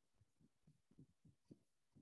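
Near silence: faint room tone with a few very faint, short low thumps.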